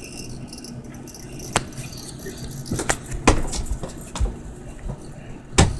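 Metal collar tags on a dog's collar clinking in a few short, scattered jingles and knocks as the dog shifts its head. The loudest come about three seconds in and just before the end, over a low steady hum.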